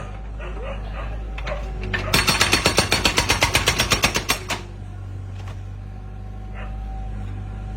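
Excavator's hydraulic rock-breaking hammer firing a rapid run of blows, about ten a second, for about two and a half seconds starting about two seconds in, over a steady low engine hum.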